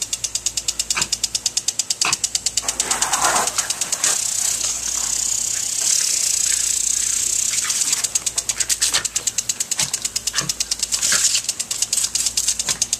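Lawn sprinkler spraying, with a fast, even clicking of about seven or eight ticks a second over the hiss of the water jet. For a few seconds in the middle the clicking gives way to a steadier hiss, and a few short louder noises come from the terrier lunging at the spray.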